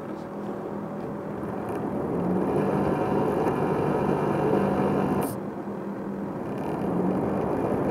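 Small fan of a USB laptop cooling pad running with a snoring drone that swells, dips about five seconds in and swells again near the end. The snoring comes from the fan's rotor pumping up and down on its shaft pin.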